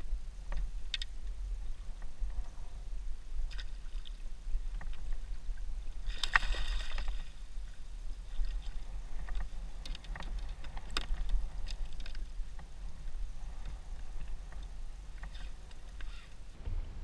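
A hooked speckled trout splashing and thrashing in the water at a kayak's landing net, loudest about six seconds in. Scattered sharp clicks and knocks of fishing gear and the plastic hull run over a steady low rumble of wind on the microphone.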